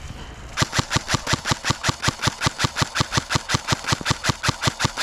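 Airsoft electric gun firing a long full-auto burst, a rapid, even run of shots at about seven a second, starting about half a second in.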